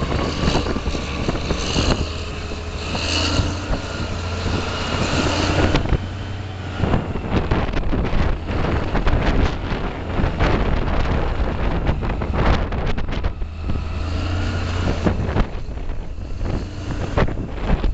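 Caterpillar 992C wheel loader's big diesel engine running under load as the machine drives and turns, a heavy low rumble with a higher whine in the first few seconds. Wind buffets the microphone.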